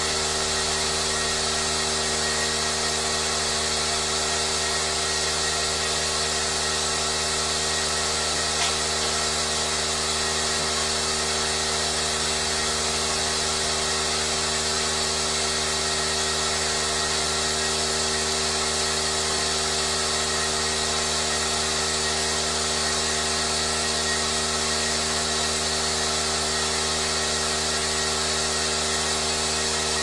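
Milking parlour machinery running: a steady, unchanging hum and hiss from the milking machine's vacuum system, with no breaks or changes.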